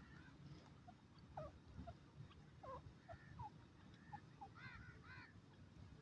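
Faint, short soft calls of grey francolins, scattered notes that rise and fall in pitch, with two louder arching notes near the end. A low rumble runs beneath.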